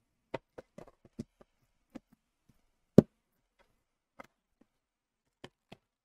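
Slot-together wooden box being handled: a scatter of light wooden clicks and knocks, with one sharp, loud knock about three seconds in.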